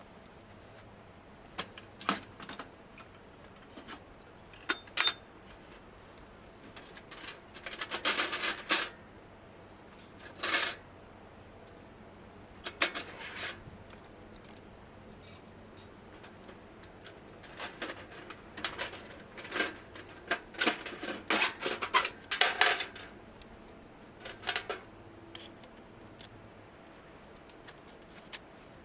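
Objects being handled at close range: irregular clicks, knocks and short bursts of rustling and scraping, with quiet gaps between them.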